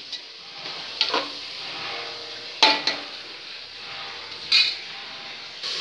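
A metal spoon stirring and scraping in a pressure cooker pot while mutton, tomato and freshly added ground masala fry and sizzle. Three sharper metallic clinks come about a second, two and a half seconds and four and a half seconds in, and the middle one rings briefly.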